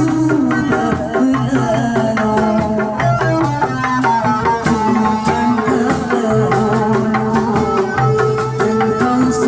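Sundanese traditional ensemble music with busy hand-drum strokes over sustained melodic lines and a steady low tone.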